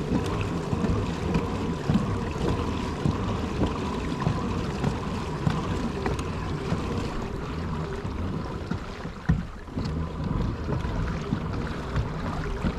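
Steady wind rumble on the microphone, with water splashing along the hull of a moving kayak and a few small knocks.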